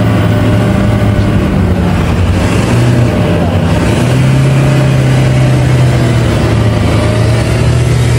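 Toyota Hilux pickup's engine running hard under load as its rear wheels spin in soft sand and spray it out, while it is pulled free on a recovery strap. The engine note steps up a little about halfway through.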